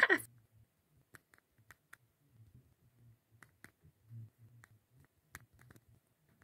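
A short, loud swoosh right at the start that falls steeply in pitch, followed by scattered light clicks at irregular intervals.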